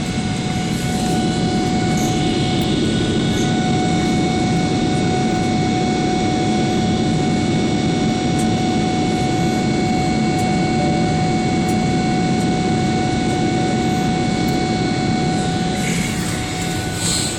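Steady cabin noise of a Boeing 777-300 in flight, heard from inside the passenger cabin: a constant rush of jet engines and airflow, with a thin steady whine above it.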